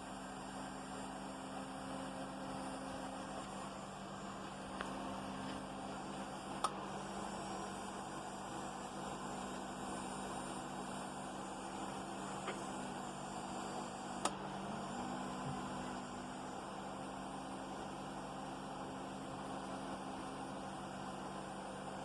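Tyco HO-scale Super C630 model locomotive's motor humming steadily, its pitch dipping briefly about two-thirds of the way through, with a few faint clicks. This is the winding noise that the owner's attempted fix has left worse than before.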